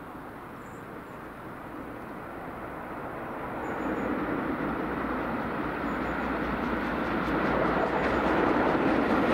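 Steam locomotive hauling a passenger train approaching at speed, its running sound growing steadily louder as it nears.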